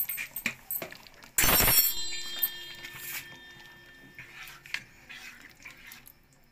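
Metal spoon clicking and scraping against a cooking pan while stirring soup, with one loud metallic clank about a second and a half in that rings on for a couple of seconds before fading.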